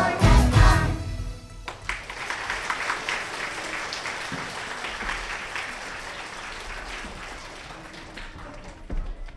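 A children's choir and its music finish the last note of a song, cutting off about a second and a half in, followed by audience applause that slowly dies down.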